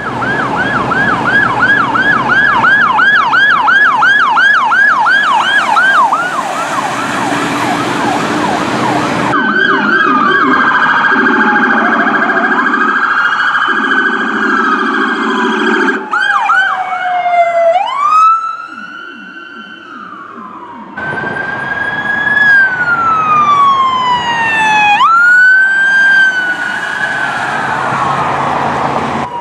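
Police car electronic sirens in a string of short clips. A fast yelp rises and falls about three times a second for the first six seconds, then slower wail sweeps glide down and back up. Two low steady tones sound near the middle, and the sirens cut off and restart abruptly several times.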